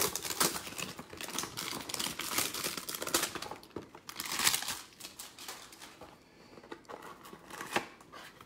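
Foil pack of football trading cards crinkling and tearing as it is opened by hand, with the cardboard hanger box rustling as it is handled. Irregular bursts of crinkling, the loudest a little past halfway and another near the end.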